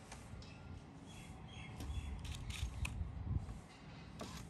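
Scattered light clicks and taps of composite (WPC) deck boards and their plastic fixing clips being handled and pushed into place on the joists, busiest about halfway through.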